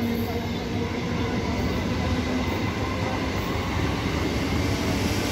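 Eastern Railway electric multiple-unit local train running past close by at speed: a steady noise of wheels on the rails and coaches going by.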